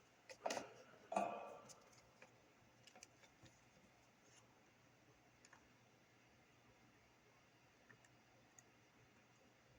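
Small tools and parts handled at a workbench during soldering: two sharp clicks about half a second and a second in, then near silence with a few faint ticks.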